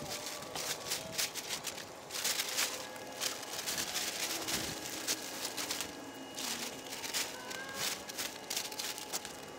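Heavy 9-mil polyethylene tarp crinkling and rustling as it is hauled and draped over a cattle-panel arch, in an irregular run of crackling rustles.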